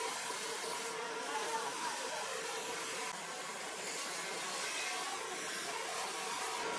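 Steady background hiss with a faint, even hum underneath.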